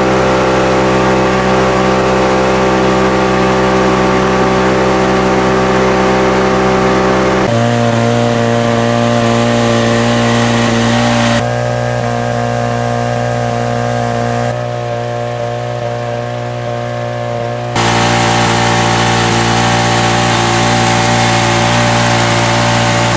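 Portable fire pump engine running steadily at constant speed. Its note changes abruptly several times and it is quieter for a few seconds in the middle.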